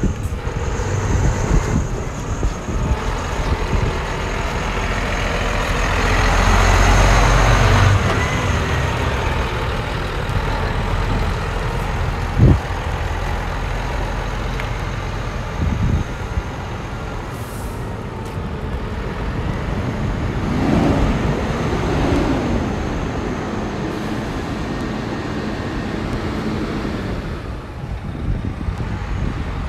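Scania R124 400 tractor unit's straight-six diesel engine running as the truck drives slowly, louder as it pulls away a few seconds in. About twelve seconds in there is one short sharp sound, and later the engine pitch rises and falls.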